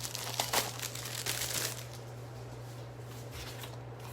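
Paper and card stock from a card-making kit rustling and crinkling as they are handled, with several sharper crinkles in the first two seconds, over a steady low hum.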